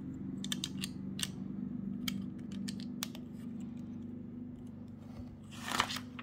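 Plastic Lego bricks clicking as they are handled and pressed onto the model, a scattered run of small sharp clicks. Near the end comes a denser rustle and clatter, like loose bricks being rummaged. A steady low hum sits underneath.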